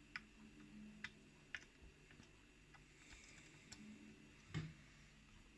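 Faint, sparse metallic clicks of a lock pick and tension wrench working the pin stack of a rim cylinder lock during single-pin picking, the loudest a slightly heavier knock about four and a half seconds in.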